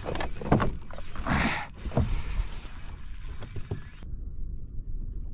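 A spinning reel being wound in against a freshly hooked fish, its gears clicking and grinding irregularly under load.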